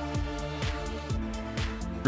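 Electronic background music with a steady beat, about two drum hits a second.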